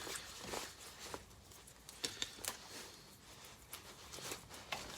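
Faint scattered clicks and light scraping from handling a cable and a stripping knife in a 3D-printed wire-stripping guide.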